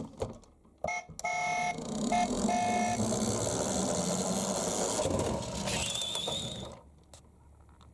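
Toy ambulance minicar running, its electronic sound module giving a few short beeps and then a warbling tone over a steady rushing rattle. The sound cuts off suddenly about seven seconds in.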